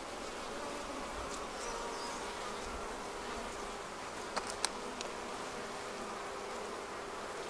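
Honeybees buzzing steadily from a crowded open hive frame, an even hum, with two brief ticks about four and a half seconds in.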